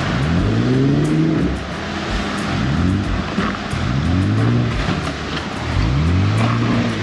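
Off-road vehicle's engine revving up and easing off four times as it crawls over boulders on a rocky trail.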